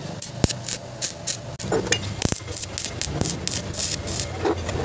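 Stick (arc) welding on a steel exhaust pipe: the electrode's arc crackling and sizzling in a dense, irregular stream, with a couple of sharper pops.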